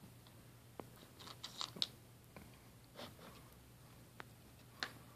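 Cat crunching dry kibble: faint, crisp crunches at irregular intervals, with a quick run of them a little over a second in.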